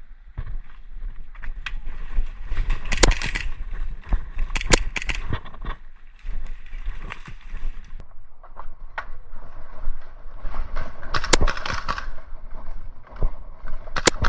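Airsoft player on the move: irregular footsteps and handling scuffs over a low rumble, with a few sharp cracks about three and four and a half seconds in, then again near the end.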